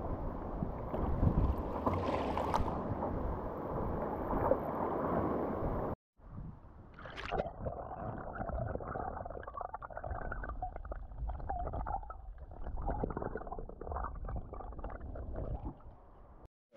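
Wind buffeting the microphone over water splashing at the sea surface. After a sudden cut about six seconds in, muffled underwater sound with sloshing and small crackles.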